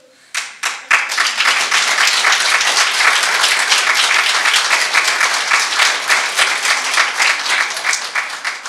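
Audience applauding: a few first claps, then full applause from about a second in that eases off near the end.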